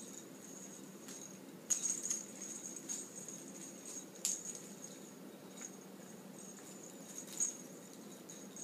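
A miniature dachshund puppy plays with toys on a tile floor: a plastic rattle toy clacks and rattles against the tiles in a few sharp knocks, the loudest about two seconds in and again near the end. A faint steady high ring runs underneath.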